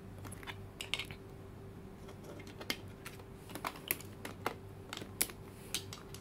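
Small plastic puzzle blocks being picked up and set down on a tabletop and in a plastic grid tray: a scatter of light, irregular clicks and taps.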